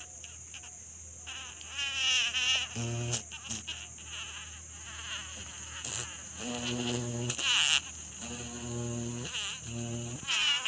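A steady high-pitched insect drone, with four low, even buzzing tones of about a second each in the second half.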